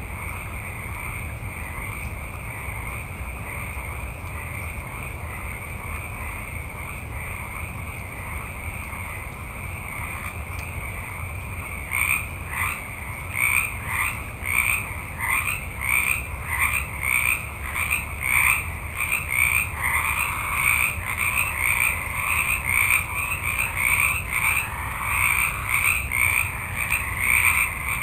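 Chorus of many frogs calling together in a steady dense drone. About halfway through, louder, closer croaks join in, repeating about once or twice a second.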